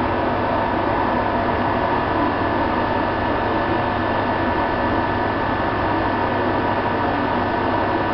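Stationary electric passenger train, ZSSK class 381 locomotive with a push-pull set, idling: a steady low hum with a couple of constant high whines over an even rushing noise, typical of an electric locomotive's cooling fans and converters running while it stands.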